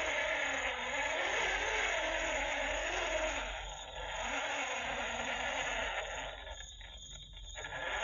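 MN-series scale RC crawler's electric motor and gearbox whirring as it drives through muddy ruts. The whir eases off briefly about four seconds in and drops away again for about a second near the end before picking up.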